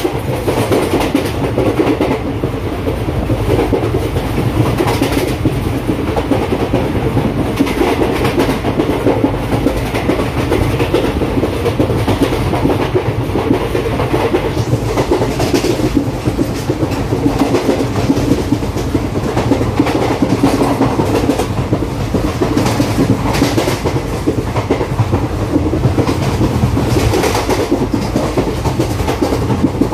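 ICF passenger coach running at speed, its wheels rumbling and clicking over the track in an irregular clickety-clack.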